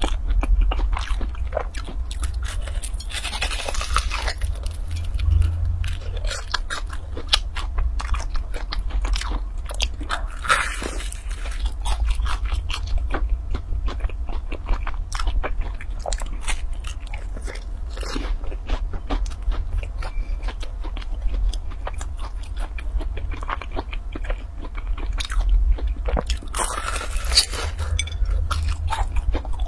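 Close-miked biting and chewing of a crisp deep-fried dough ball, its crust crackling in many small crunches, with louder bites about 3, 10 and 27 seconds in. A steady low hum runs underneath.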